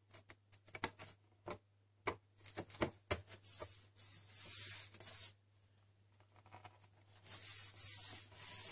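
Aluminium bottom case of a MacBook Pro being fitted back on by hand: a quick run of light clicks and taps, then two longer spells of hands rubbing and sliding across the metal panel.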